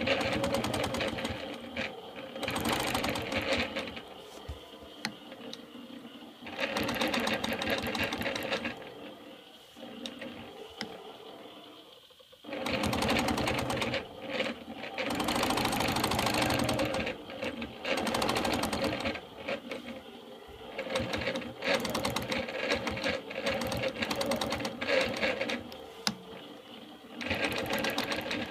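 Longarm quilting machine stitching at speed along a ruler, its needle and hopping foot running in several bursts of a few seconds each with short pauses between.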